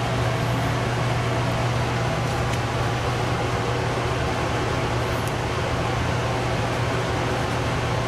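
Steady low hum with an even fan-like hiss: a machine or fan running.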